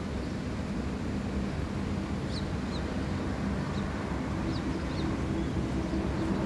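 Steady low drone of a distant motor over a low rumble, with a few short high bird chirps about two and a half and four and a half seconds in.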